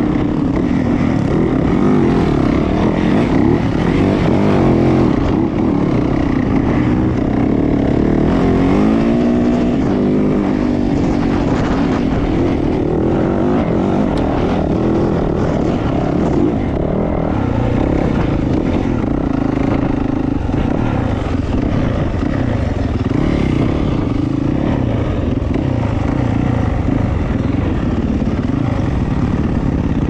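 2020 Yamaha YZ450F dirt bike's single-cylinder four-stroke engine running under way, its pitch rising and falling with the throttle, most plainly about eight to ten seconds in.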